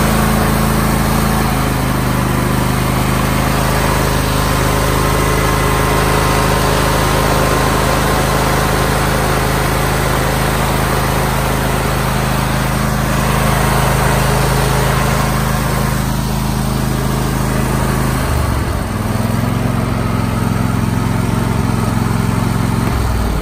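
Craftsman YS4500 lawn tractor's Briggs & Stratton Intek 24 hp overhead-valve V-twin running steadily. The note shifts about eighteen seconds in and starts falling near the end. This is the engine that would not even start a few weeks earlier, now running after a full tune-up.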